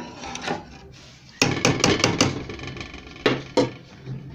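A metal spoon stirring thick dal in a steel pot, scraping and clinking against the pot. There is a quick run of clinks about one and a half seconds in, and two more a little after three seconds.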